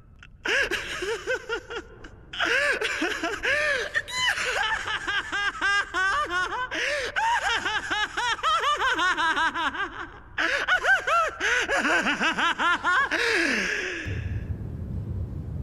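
A man's long fit of laughter in quick, rising-and-falling peals, breaking off briefly about two seconds in and again about ten seconds in, and dying away about fourteen seconds in. A low rumble is left near the end.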